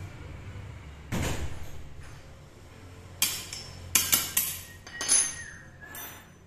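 Steel hand tool knocking and clinking against the steel frame and rails of a small lathe fixture. A dull knock comes about a second in, then a quick run of sharp metallic clinks, each ringing briefly.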